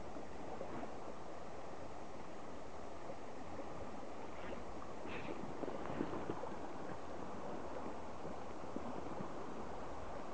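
River water running steadily, an even rushing noise with a few faint brief sounds around the middle.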